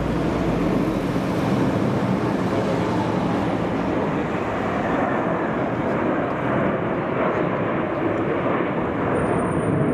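Jet engines of a six-ship formation of twin-engine Sukhoi fighter jets flying overhead, a steady, even rumble that holds at the same level throughout.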